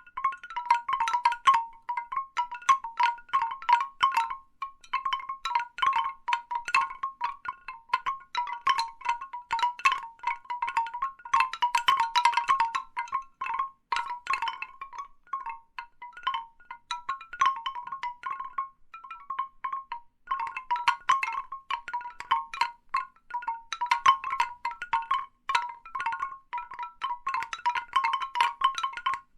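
Large bamboo wind chimes: hollow bamboo tubes knocking together in dense, irregular clusters, each knock with a short woody ring. The knocking thins out for a few seconds midway, then picks up again.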